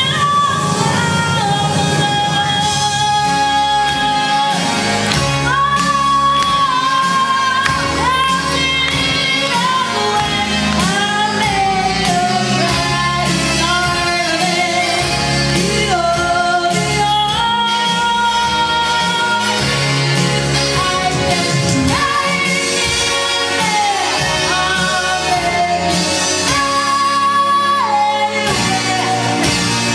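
A girl singing a pop song into a handheld microphone, amplified over pop backing music.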